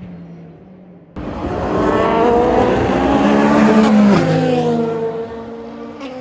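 Race car engines passing at speed. A fading engine note is cut off abruptly about a second in by a louder car approaching at high revs; its engine pitch drops sharply as it goes past about four seconds in, and it fades away.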